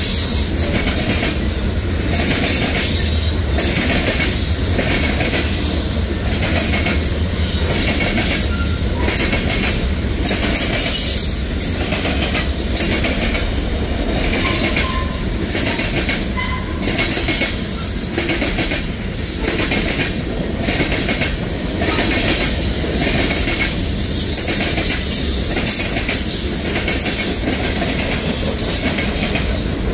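Freight cars of a passing manifest train (boxcars, covered hoppers and tank cars) rolling by: a steady rumble of steel wheels on rail with regular clacks as the trucks cross rail joints. A brief wheel squeal comes about halfway through.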